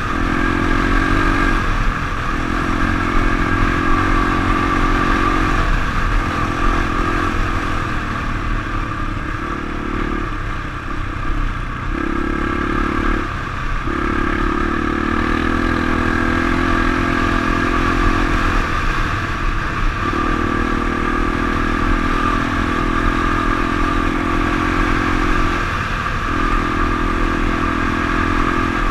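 Honda enduro motorcycle's engine running under way, the engine note coming in and dropping away every few seconds as the rider rolls on and off the throttle.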